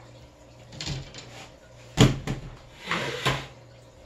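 Handling of a window screen frame and loose screen mesh being laid over it: a few knocks and rustles, the sharpest knock about two seconds in.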